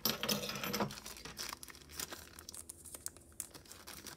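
Small clear plastic jewelry bag crinkling as fingers handle and open it. The crinkling is densest in the first second, then comes in lighter, scattered crackles.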